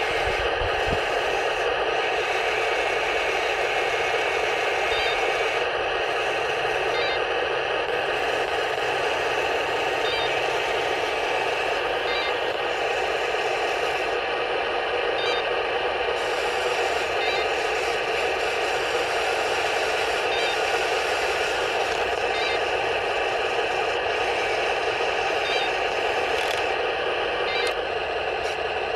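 Steady engine-running sound from the 1:16 RC Pershing tank's sound unit, coming thin and bass-less through its small speaker.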